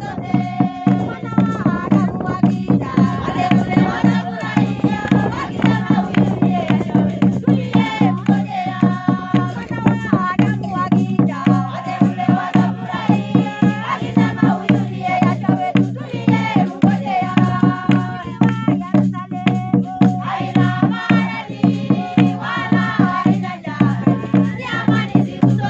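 A group of women singing together, with rhythmic hand-clapping keeping the beat.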